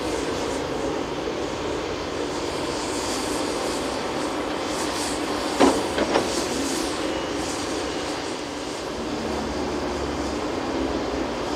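Caterpillar 330F VA crawler excavator's diesel engine and hydraulics running steadily while digging, with two sharp metallic clanks about halfway through, half a second apart.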